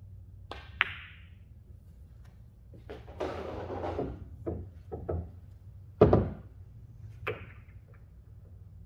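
Pool cue tip striking the cue ball with a sharp click and a ball-on-ball clack just after, then shuffling and scattered knocks as the player moves round the table, with a loud dull thud about six seconds in and another click near the end.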